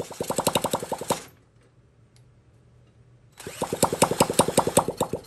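Honda Z50's 49cc single-cylinder four-stroke engine catching and running briefly twice, in quick even pops about ten a second. The first run lasts about a second and the second about two, and each cuts off suddenly.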